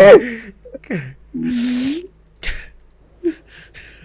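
A man laughing hard: a loud burst of laughter at the start, then a falling squeal and a drawn-out breathy, wheezing laugh, with short bursts trailing off toward the end.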